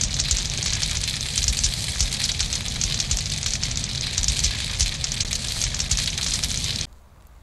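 Wood campfire burning up close: a dense, rapid crackling of the burning logs over a low rumble. It cuts off abruptly near the end.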